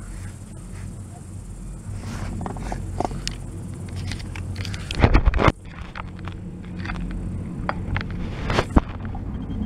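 Double chairlift running: a steady low hum with small clicks and creaks, and about five seconds in a loud half-second rumbling clatter as the chair's grip runs over the roller sheaves of a lift tower, with one more sharp clack near the end.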